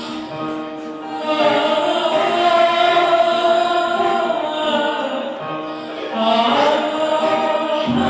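Choral music: voices holding long notes over a slow-changing chord, swelling about a second and a half in and again near the end.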